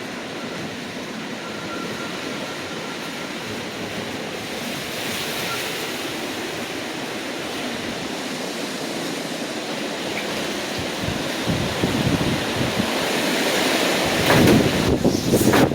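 Hurricane wind blowing steadily and picking up, with strong gusts buffeting the microphone from about two-thirds of the way through, loudest near the end.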